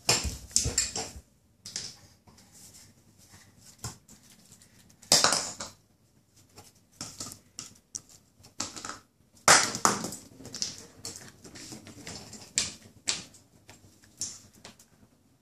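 Plastic toy cups and a bowl clattering and tapping on a tiled floor as a baby bangs and drops them: irregular sharp knocks with short gaps, two louder bangs about five and nine seconds in.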